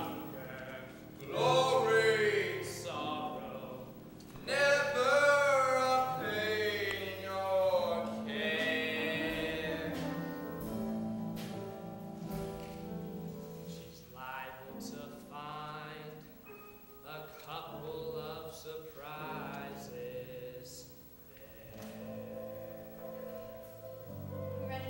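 A live stage-musical number: sustained singing with vibrato, accompanied by piano and harp, loudest in the first half and growing softer later on.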